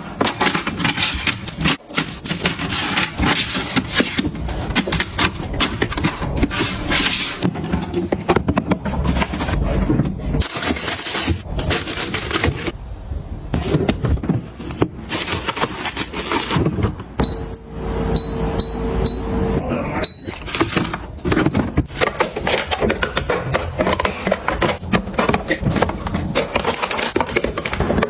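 Busy handling sounds of household items being cleaned and put away: quick clattering, tapping and rustling. About two-thirds of the way through comes a steady electronic tone lasting a couple of seconds, with a few short high beeps.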